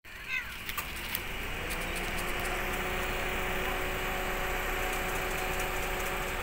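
A motor vehicle's engine running steadily over a constant background hiss, rising in pitch about a second and a half in and then holding. There are a few light clicks near the start.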